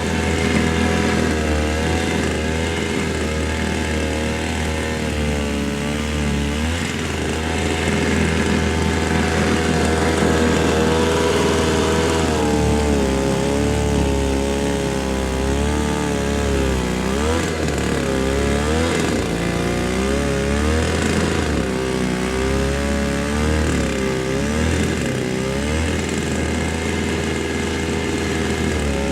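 Two-stroke engine of a Toro Snowmaster 20 snow thrower running on a freshly tuned carburetor, its pitch wandering up and down as the engine speed changes.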